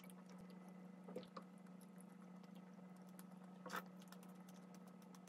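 Near silence: a steady low hum of room tone, with a few faint soft eating sounds about a second in and again a little past halfway.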